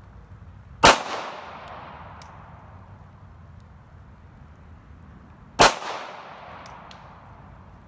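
Two shots from a custom Glock 19 9mm pistol, about five seconds apart, each dying away in a trailing echo.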